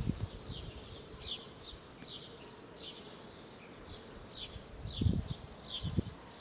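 A small bird chirping over and over in the background: short, high, falling notes repeated steadily, roughly one or two a second. A couple of low bumps come about five and six seconds in.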